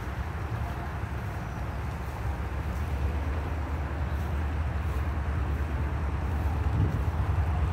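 Wind buffeting a phone's microphone: a steady, unsteady low rumble with a faint outdoor hiss above it.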